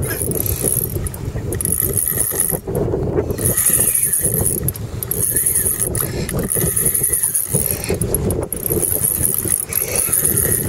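Spinning reel's drag buzzing out in repeated bursts as a hooked fish takes line against the bent rod, over a steady low rumble.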